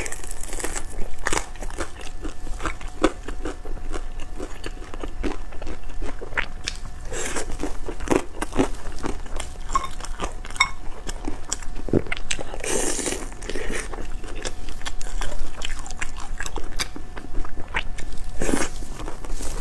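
Close-miked biting and chewing of pan-fried shengjian bao buns, their crisp browned bottoms crunching, in a steady run of short wet crackles and smacks.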